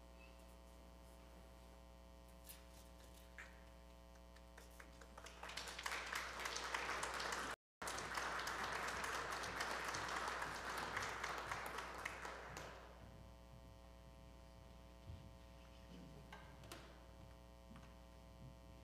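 A congregation applauding. Scattered claps swell into steady applause about five seconds in and fade out over several seconds.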